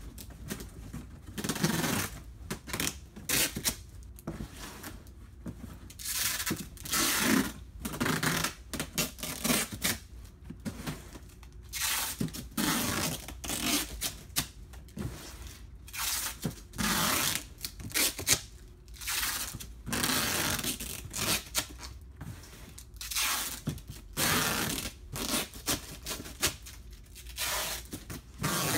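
Corrugated cardboard box flaps being bent, creased and pressed down by hand, in repeated irregular scraping and crinkling bursts.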